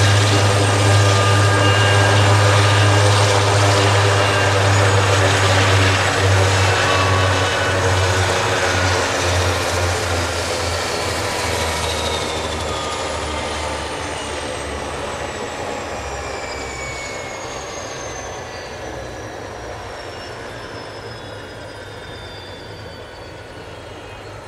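Aerospatiale AS332L1 Super Puma's twin Turbomeca Makila turboshafts shutting down on the ground: the turbine whine glides steadily down in pitch and the whole sound fades away as the main and tail rotors slow. The rotor's low beat weakens along with it.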